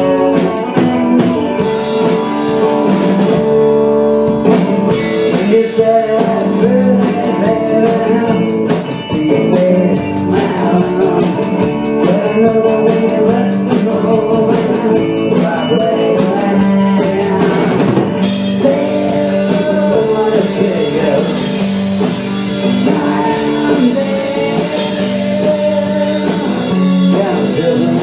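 Live rock band playing a blues-rock song, with drum kit, guitars and some singing over a steady beat.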